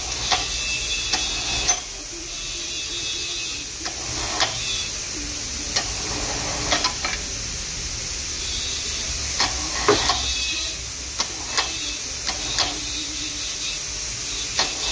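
Toolcraft electric wire-rope hoist running under its pendant control, winding and paying out its steel cable on the drum with a steady motor hum. Sharp clicks come every second or two.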